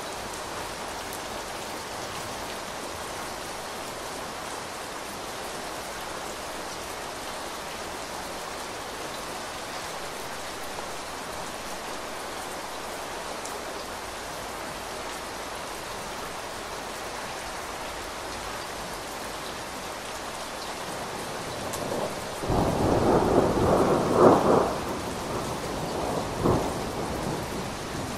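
Steady heavy rain on a window. Near the end, a roll of thunder rises out of it, peaks, and tails off with a few sharper cracks.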